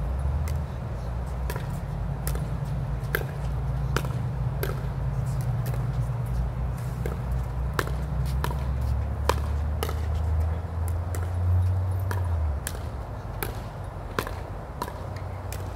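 Pickleball paddles striking a plastic ball in a rally: sharp, hollow pocks about one to two a second, mixed with the ball bouncing on the court. A steady low rumble runs underneath and drops away about twelve seconds in.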